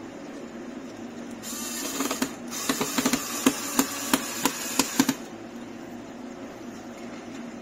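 WORX cordless electric screwdriver running for about four seconds as it drives a screw into the head unit's metal mounting bracket, with a run of sharp clicks in the second half.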